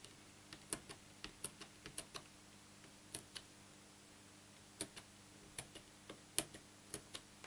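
Hand piercing tool pricking holes in cardstock through a plastic piercing template, a sharp tick with each hole, one to three a second at an uneven pace, pausing for a second or so about halfway through.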